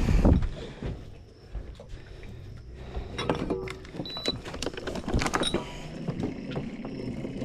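A person climbing out of a small fishing boat: a heavy thump, then a run of knocks and clatter against the hull, with two short high beeps partway through.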